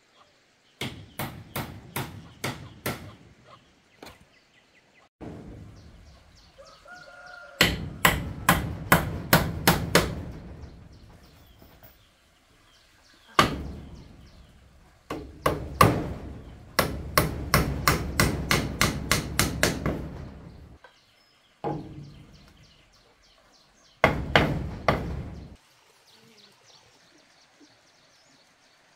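Repeated sharp blows of a hand tool striking wood, in quick runs of about three to four knocks a second separated by short pauses.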